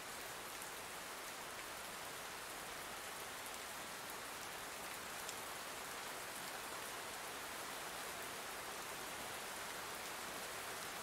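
Steady rain, an even hiss with a few faint drop ticks.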